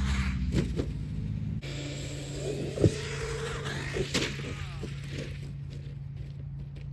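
Large brushless RC trucks running and jumping, with a steady low hum and a few sharp thuds of landings. The loudest thud comes about three seconds in and another about a second later.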